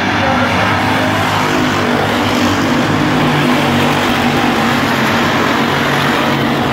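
A pack of hobby stock race cars running at racing speed around a dirt oval, their engines making a steady, loud drone.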